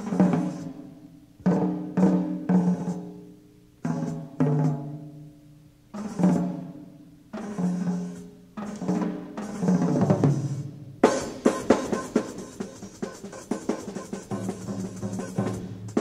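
Drum solo on a drum kit, heard from a live recording on cassette tape: single drum strokes and short pairs, each ringing out and dying away with pauses between them, then from about eleven seconds in a dense run of quick strokes.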